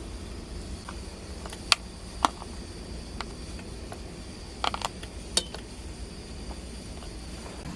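Light clinks and taps of dishes and utensils being handled, about six short ones with a quick cluster about two thirds of the way through, over a low steady rumble.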